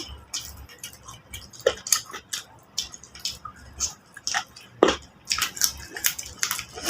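Wet chewing and lip-smacking of people eating chicken in curry, a string of irregular sharp smacks.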